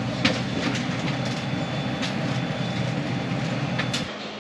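Steady drone of an airliner's engines heard inside the passenger cabin, with scattered rattling clicks; it drops away abruptly about four seconds in.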